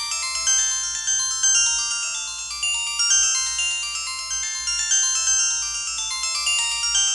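A downloaded ringtone playing on a Samsung SGH-T629 mobile phone: a fast electronic melody of short, high, stepping notes that keeps looping.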